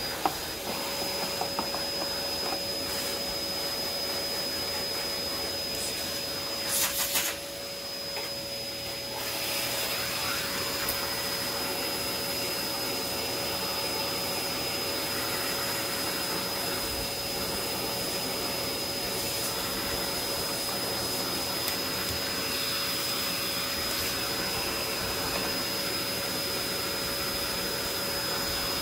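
Vacuum cleaner running with a steady high whine and suction hiss as its crevice tool sucks dust and debris off a plastic vacuum base plate. There is a brief louder burst of noise about seven seconds in.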